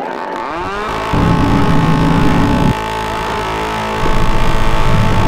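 Motocross bike engines revving, rising in pitch in the first second, then loud stretches of high revs that start and stop abruptly.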